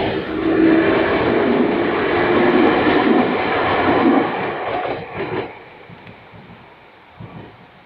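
Electric commuter train passing over a level crossing: loud wheel-and-rail noise for about four seconds, a few knocks of the wheels over the rail joints at about five seconds, then it fades quickly as the train moves away.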